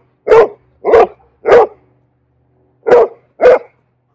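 Bernese Mountain Dog demand barking for attention: five barks, three about half a second apart, then a pause of over a second and two more.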